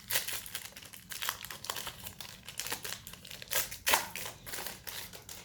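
Crinkling and rustling of a trading-card pack wrapper while the cards are handled: a run of irregular light crackles and clicks.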